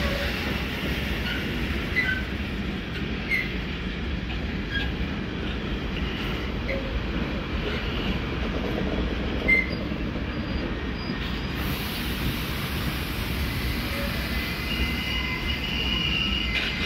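Container freight train's wagons rolling past: a steady rumble of wheels on rail with a few short wheel squeals, and a longer held wheel squeal near the end.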